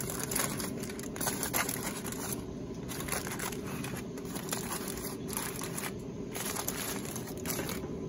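Aluminium foil crinkling and crumpling in irregular bursts as it is folded and crimped by hand into a packet.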